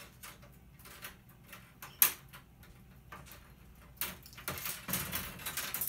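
Sharp clicks and snaps as LED backlight bars are pried loose from a flat-screen TV's back panel. There is one loud snap about two seconds in, and near the end a run of clicking and rattling as the thin bars come free.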